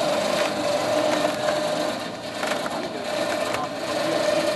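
Wooden-spoked, iron-tired wheels of a Napoleon field cannon being pushed along a wooden plank platform: a rumbling, creaking wood-and-metal noise with a few sharp knocks, over a steady hum that runs throughout.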